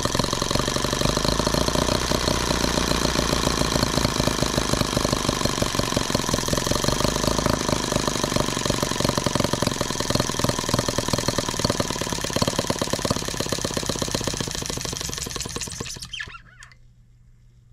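Microcosm H76 twin-cylinder four-stroke model engine running with a fast, even stream of firing pulses while firing on only one cylinder. It cuts out about sixteen seconds in and runs down to a stop.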